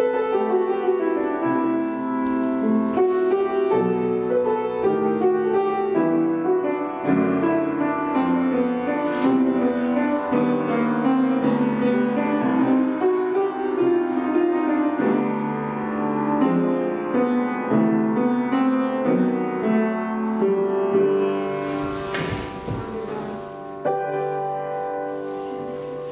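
Piano playing classical-style accompaniment for ballet barre exercises, changing chords, growing softer near the end.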